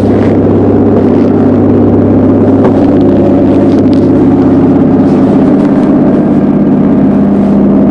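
Motorboat engine running steadily under way, loud, over a constant rushing hiss.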